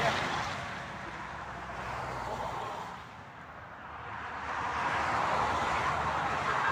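Motorway traffic going by: the tyre and engine noise of a passing vehicle dies away, goes quiet about three seconds in, then the next vehicle comes up and gets louder.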